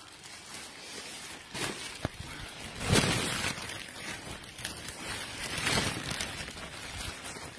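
Rustling and handling noise with several knocks, the loudest about three seconds in.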